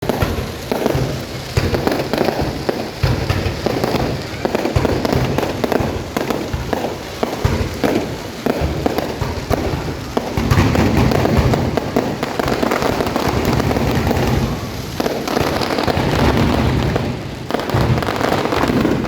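Fireworks display: a rapid, overlapping run of bangs and booms with a continuous low rumble, growing denser and louder about halfway through.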